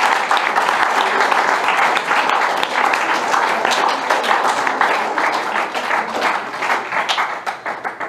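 Audience applauding, thinning to a few scattered claps near the end.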